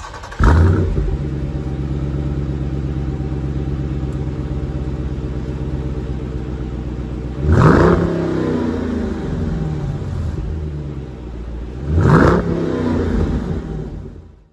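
2021 Dodge Durango SRT 392's 6.4-litre HEMI V8 heard at the tailpipes. It starts with a flare about half a second in and settles to a steady idle. It is then revved twice, about seven and twelve seconds in, each rev rising and dropping back to idle.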